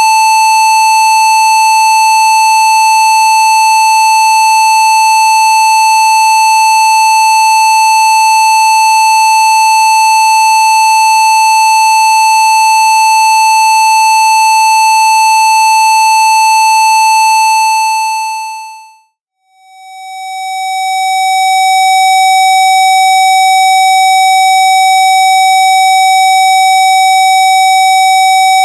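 Steady electronic test tone at 880 Hz, part of a Rife-frequency sequence for snoring, fading out about 18 seconds in; after a moment of silence it fades back in as a slightly lower steady tone at 760 Hz.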